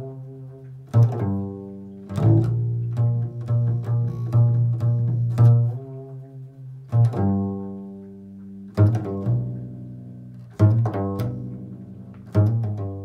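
Improvised music on a low-pitched plucked string instrument: deep notes plucked sharply and left to ring and fade, with quick runs of repeated notes between them. The strongest plucks come about every two seconds in the second half.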